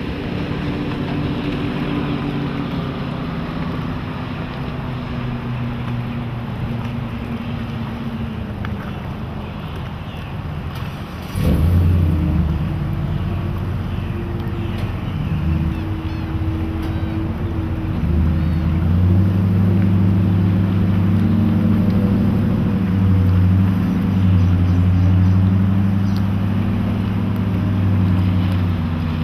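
A 21-foot bowrider's MerCruiser 5.7-litre V8 sterndrive engine running at planing speed, with water rushing under the hull. The engine note steps suddenly louder about eleven seconds in and grows stronger again from about nineteen seconds.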